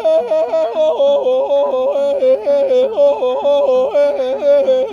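A voice singing a fast warbling run without words. The pitch flicks back and forth between two notes about three or four times a second, in one continuous phrase.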